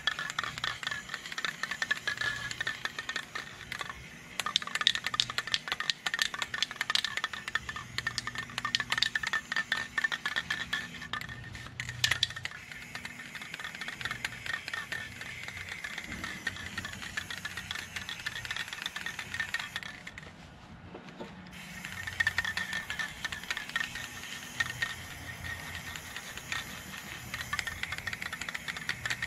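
An aerosol spray-paint can (Quick Color spray enamel) being worked: the mixing ball rattling in dense, rapid clicks in long spells, with a short lull about two-thirds of the way through.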